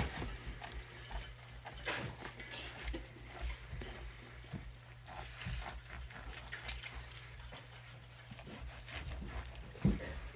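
Knife sawing through a rib roast on a cutting board, with faint scrapes and a few knocks of the blade.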